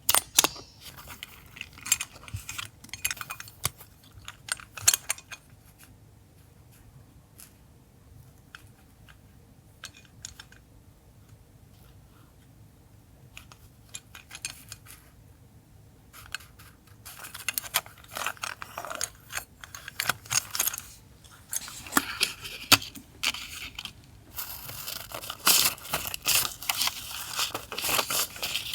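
Paper craft materials being handled close to the microphone: crisp rustles, taps and snips, scattered at first, sparse for a while, then dense in the last ten seconds.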